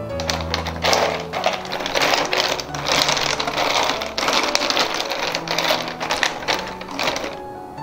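Ice cubes clattering and clinking against each other and the plastic tub as a hand shifts and levels them, a rapid, irregular run of clicks that stops shortly before the end.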